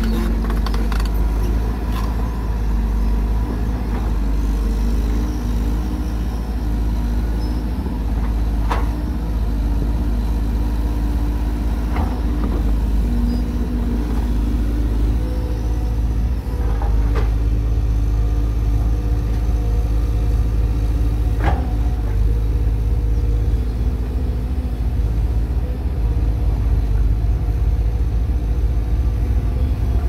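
Volvo crawler excavator's diesel engine running close by, a steady deep rumble, with a few sharp knocks spread through.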